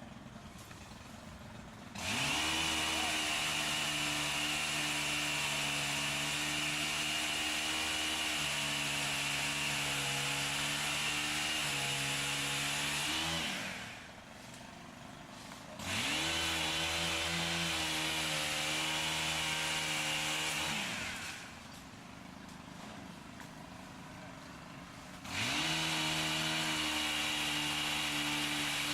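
Two-stroke chainsaw revved to full throttle three times, each run several seconds long with the pitch dipping now and then as if under load while cutting, and falling back between runs.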